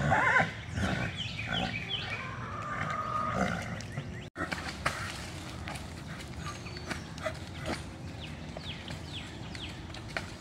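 Horses squealing and grunting in loud calls over about the first two seconds, as a stallion is brought to a mare for breeding. After that, quieter background with birds chirping.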